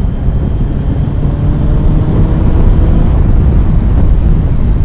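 Kawasaki ZX-9R inline-four sportbike running at road speed, its engine and exhaust heard steadily under wind noise on the microphone.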